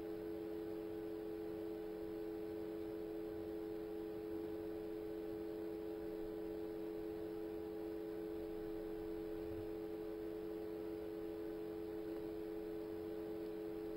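Steady electrical hum of two close-pitched tones over faint hiss, unchanging, with no other sound.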